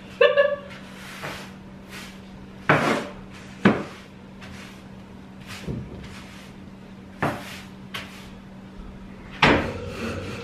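A broom sweeping out an empty pantry closet: about seven irregular swishing strokes, some of them knocking against the walls and shelves, over a faint steady hum.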